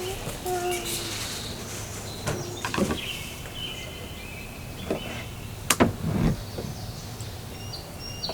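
Outdoor background noise with a few short, high chirps in the middle and two sharp knocks about two-thirds of the way through.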